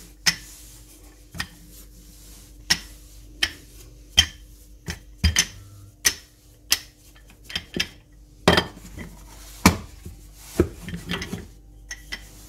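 Wooden rolling pin knocking against a stone countertop as dough is rolled out, with short sharp knocks at uneven spacing, about one a second; the two loudest come about two-thirds of the way through.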